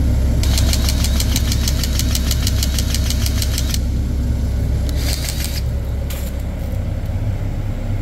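Battery-powered grease gun pumping grease into the boom swing cylinder's rod-end fitting: a rapid, even ticking for about three seconds, then a shorter run about five seconds in. Under it, the steady drone of the John Deere 60G mini excavator's Yanmar diesel idling.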